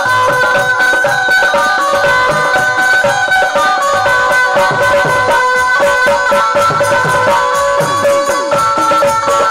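Instrumental interlude of a Hindi devotional folk song (devi jas): held melody notes over a fast, steady drum beat with jingling percussion.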